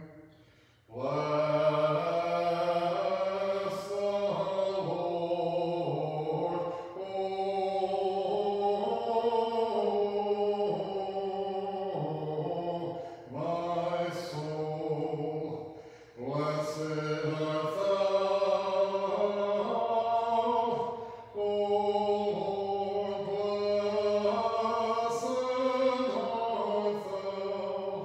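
Orthodox liturgical chant sung a cappella in held, stepping notes, in phrases several seconds long with short breaks between them.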